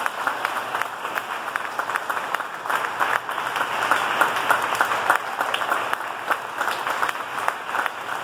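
A room full of people applauding, many hands clapping at once in a steady, sustained round of applause.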